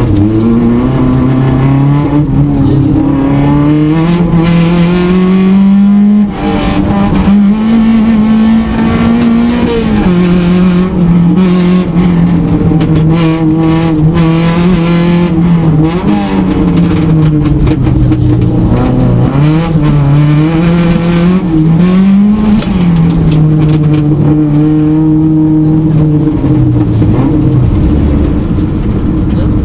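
Rally car engine heard from inside the cockpit, driven hard on a special stage. The engine note climbs until a sharp drop about six seconds in, then holds, falls and rises again as the throttle is lifted and reapplied for corners.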